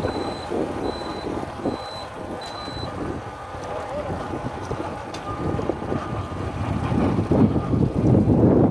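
Motorcycle riding heard from on the bike: engine rumble mixed with wind buffeting the microphone, growing louder over the last couple of seconds on the rough dirt track. A thin high electronic beep repeats about once every 0.8 s, four times, and stops about three seconds in.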